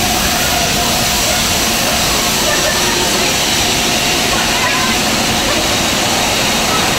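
Steam locomotive (LMS Stanier Black 5 4-6-0) letting off steam in a loud, steady hiss with no exhaust beats.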